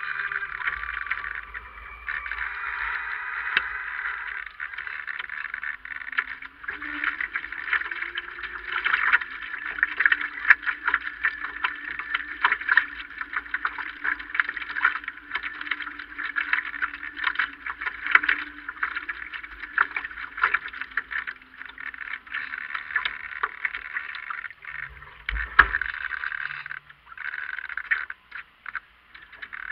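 Water splashing and rushing along the hull of a Marblehead radio-controlled yacht sailing in a breeze, heard from a camera on its deck: a rising and falling hiss full of small splashes and crackles. There is a single dull thump near the end.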